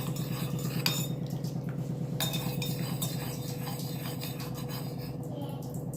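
A spoon stirring honey into the betel-leaf decoction in a cup, clinking repeatedly against its sides.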